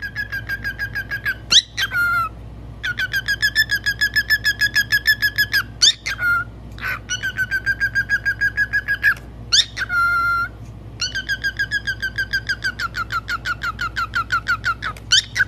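Cockatiel chirping rapidly during a peekaboo game with a hand. It makes long runs of quick repeated chirps, about seven a second, broken every few seconds by a short rising whistle.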